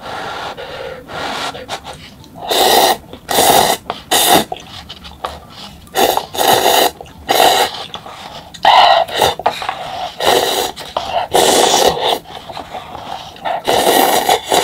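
Close-up slurping of instant cup ramyeon noodles and broth, a string of short, loud slurps at irregular intervals.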